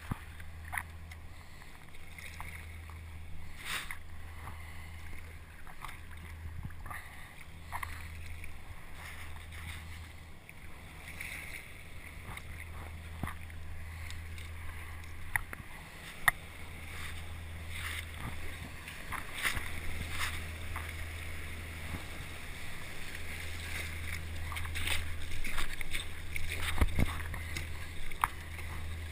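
Surfski paddle strokes splashing in choppy water over a steady low drone, with the water rushing and splashing louder near the end as the surfski runs through a dredge's churning wake.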